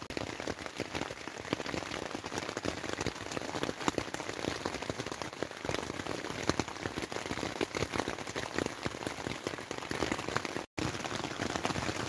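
Heavy rain pouring down on a tent's fabric, heard from inside: a dense, steady patter of many separate drops striking the flysheet. The sound cuts out for a split second near the end.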